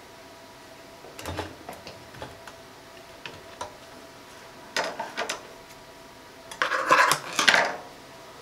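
Scattered light clicks and knocks as the work is handled at the needle and presser foot of a walking foot sewing machine, which is no longer running. Near the end comes a louder rustle of thin polyester fabric being pulled out from under the foot.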